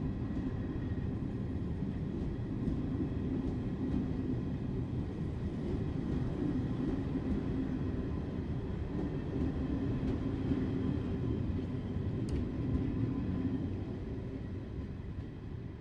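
A steam-hauled passenger train's carriages rolling on the rails, a steady low rumble that eases a little near the end as the train draws away.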